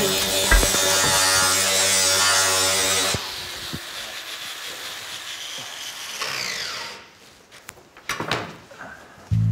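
Electric angle grinder running against a workpiece, its whine falling away about six to seven seconds in, followed by a few sharp knocks.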